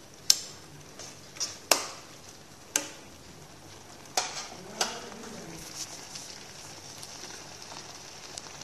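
Thick spinach and urad dal simmering in a pan, with a steady sizzling hiss. About six sharp clicks sound in the first five seconds, then the hiss goes on alone.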